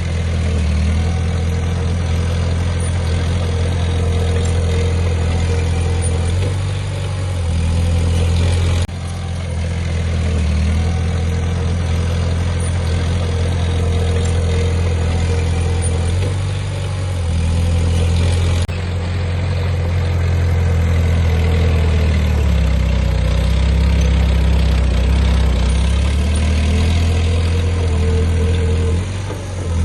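Heavy diesel engine of earthmoving machinery (dump truck or bulldozer) running, with a deep drone whose pitch rises and falls as it works. The sound changes abruptly about 9 and 19 seconds in.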